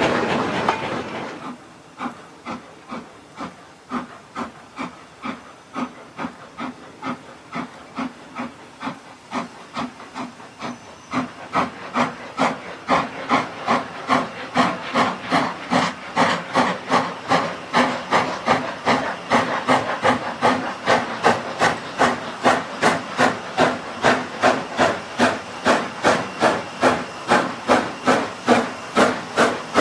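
Hunslet 'Austerity' 0-6-0 saddle tank steam locomotive working hard up a bank with a loaded train, its exhaust barking in a regular rhythm of sharp beats. The beats quicken slightly and grow louder from about ten seconds in as the engine draws nearer.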